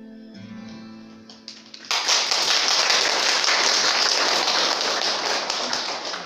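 Steel-string acoustic guitar rings out on the last notes of a song, then about two seconds in an audience breaks into applause, louder than the guitar, that fades just before the end.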